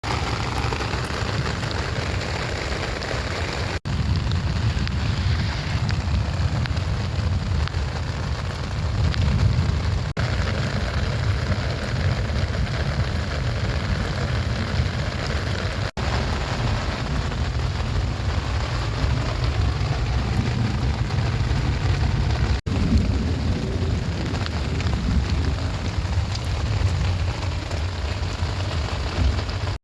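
Rain falling steadily with an even hiss and a low rumble underneath. The sound cuts out for an instant four times, about every six seconds.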